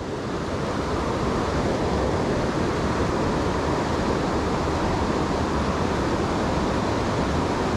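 Steady rush of a river's current, an even hiss of flowing water that holds level throughout.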